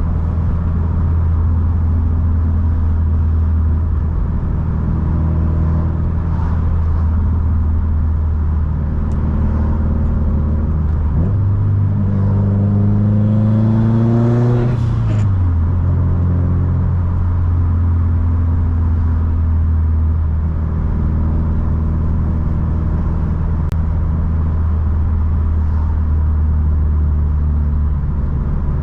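Subaru STI's turbocharged flat-four engine cruising with a steady drone. About eleven seconds in, the note steps up and rises for about four seconds under acceleration, with a hiss near the top. It then drops back to a steady cruise.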